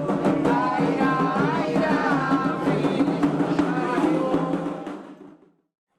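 Candomblé ceremonial drumming and singing, with hand drums beating under a sung melody, fading out about five seconds in.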